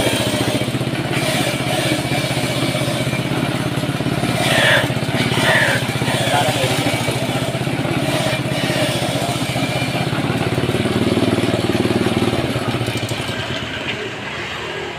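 Motorized coconut grater running steadily, its engine-like drone carrying the rasp of coconut flesh being grated off halves pressed against the spinning drum. It gets quieter near the end.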